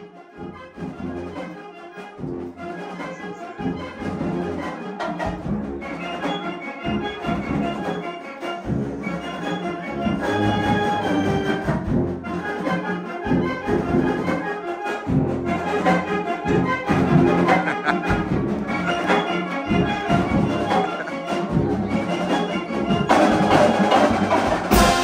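Full marching band playing brass-led music: sousaphones, trumpets and trombones, with saxophones, clarinets and percussion. It starts softer and grows louder over the first ten seconds or so.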